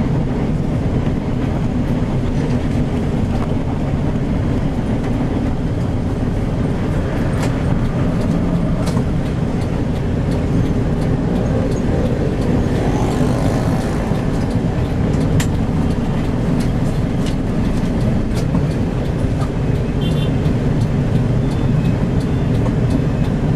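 Steady engine and road rumble of a moving tour bus, with a few brief clicks and rattles.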